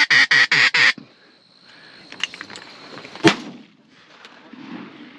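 Duck call blown in a rapid run of loud, evenly spaced quacks, about five a second, each dropping in pitch; it stops about a second in. A single sharp crack, like a distant shot, comes a little past the three-second mark.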